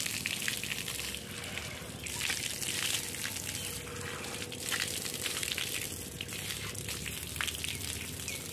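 Water running from an outdoor standpipe tap, pouring and splashing over cupped hands and onto concrete as they are washed under it. The flow and splashing go on steadily.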